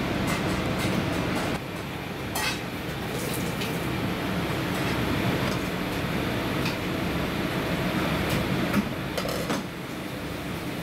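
Steady low rumbling background noise with scattered light clicks and clinks, a few of them clustered near the end.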